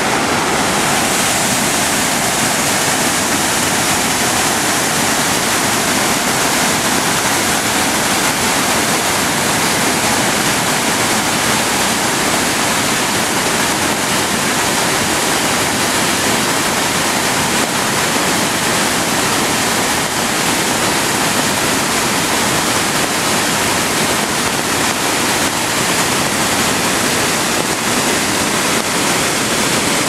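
Rhine Falls, a large river waterfall, rushing: a loud, steady wash of white-water noise.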